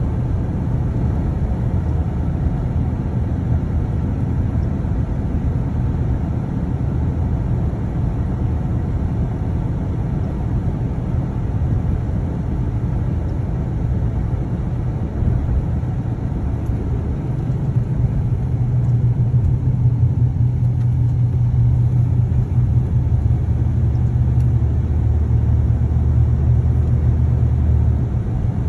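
Steady road and engine rumble inside a moving vehicle's cab, with a low drone that grows louder a little past halfway and deepens near the end.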